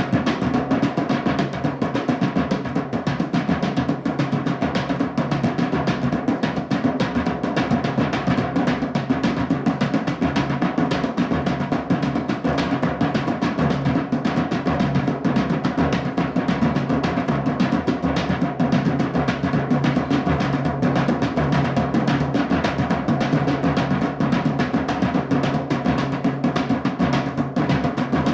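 Drumming music with a fast, unbroken run of drum strokes at a steady level.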